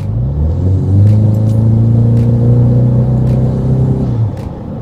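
Ford Mustang's 2.3-litre turbocharged four-cylinder engine accelerating hard. The revs climb over the first second and hold at a steady high note for about three seconds, then fall away near the end as the throttle is released.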